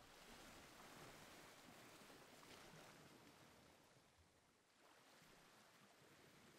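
Near silence: a faint, even hiss that swells and eases, dipping about four and a half seconds in.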